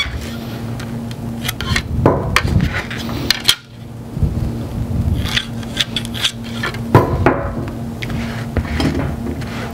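Hands handling a bowling ball on its cup stand while laying a plastic layout template on it and marking lines with a pencil: irregular knocks, clacks and rubbing, the loudest knocks about two seconds in and again about seven seconds in.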